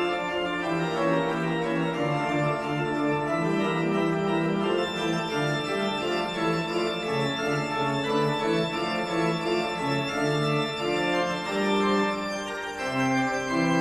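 Organ playing slow, sustained chords, each note held for a second or so before the harmony moves on.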